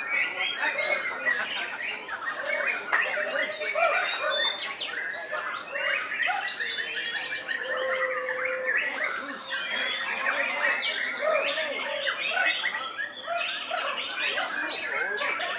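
Caged white-rumped shamas singing over one another in a dense, unbroken chorus of whistles, trills and harsh squawky calls.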